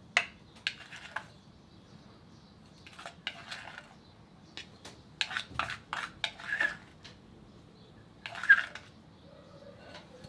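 Kitchen utensils clinking and scraping against a mixing bowl in a string of short, irregular knocks, the loudest about two seconds before the end, while butter and icing sugar are worked for a sweet pastry dough.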